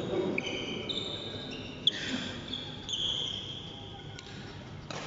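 Sneakers squeaking on the badminton court floor: several short, high squeals overlapping. One sharp racket-on-shuttlecock hit comes about two seconds in.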